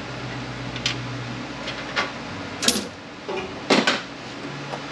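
Sharp metal clinks and clanks of hand tools and transmission parts being handled on a workbench, about five in all, the loudest in the second half, over a steady fan hum.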